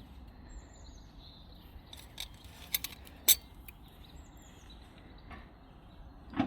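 A few light clicks and clinks of small hard objects being handled, the sharpest a little past three seconds in, over a low steady rumble.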